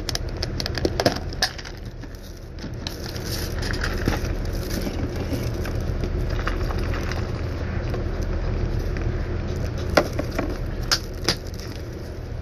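Clear plastic packaging being handled, crinkling and clicking in short spells near the start and again near the end, over a steady low rumble.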